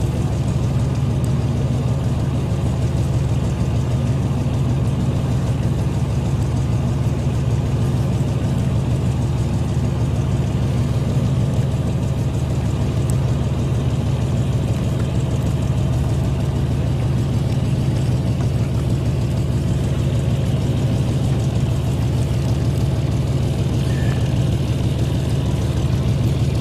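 Fishing boat's engine running steadily at idle, a constant low hum with no change in pitch or level.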